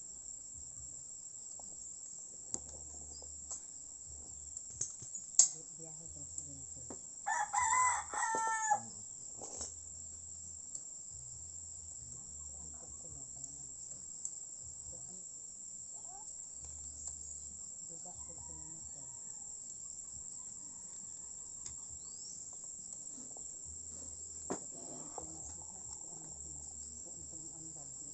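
A rooster crows once, about seven seconds in, over a steady high chirring of crickets. A few sharp clicks and knocks come and go, the loudest shortly before the crow.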